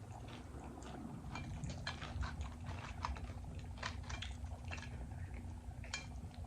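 Close-miked chewing of cheesy Doritos nachos: a low mouth rumble with scattered small crunches and mouth clicks.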